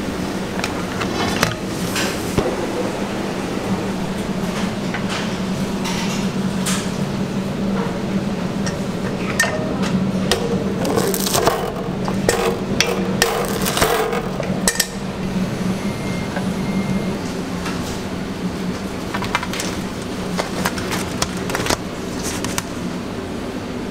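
Commercial kitchen sounds: metal pans and utensils clattering and knocking now and then over a steady low machine hum.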